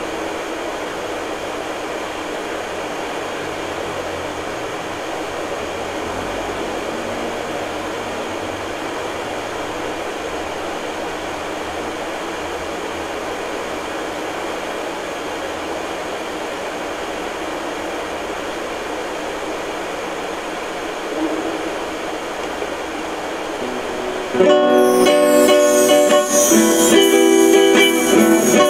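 A steady background hiss fills most of the stretch. Near the end, plucked-string music, like a guitar, starts abruptly and is much louder.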